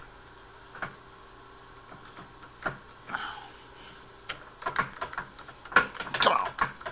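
Scattered metallic clicks and clunks from the stopped 1953 LeBlond Dual Drive lathe's headstock as its speed-change levers are worked by hand, few at first and coming thicker and louder in the last few seconds. A faint steady hum lies underneath.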